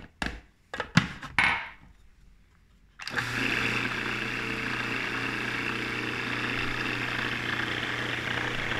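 A few plastic clicks and knocks. About three seconds in, a food processor's motor starts and runs steadily with a constant hum, mixing a wet semolina pasta dough.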